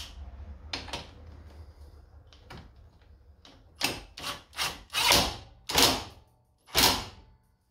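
A 20V cordless impact wrench hammering the crankcase cover bolts tight on a scooter. It runs in several short bursts of rapid rattling impacts, most of them from about four seconds in.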